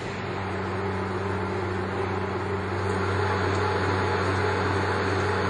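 Universal milling machine running with a steady motor hum and whirr, getting a little louder over the first few seconds.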